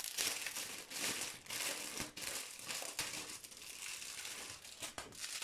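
Plastic crinkling and rustling as a zip bag and the small plastic packets of diamond-painting drills are handled and pulled out, with scattered light clicks.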